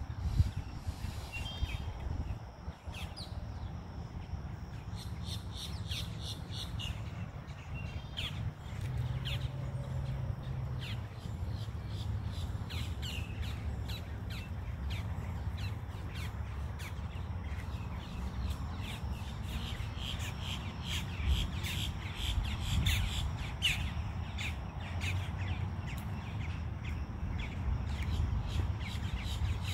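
Birds calling over and over in short calls, busiest from about two thirds of the way through, over a steady low rumble.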